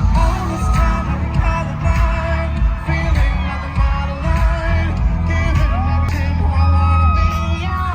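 Pop music with a singing voice over a heavy bass beat.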